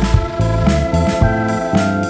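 Background music: a keyboard or organ playing over a steady beat with a bass line.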